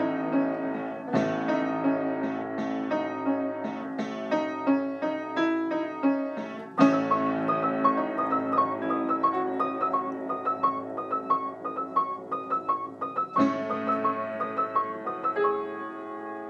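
Piano music: quick runs of struck notes with chords, with fresh loud chords about a second in, about seven seconds in, and again near the end.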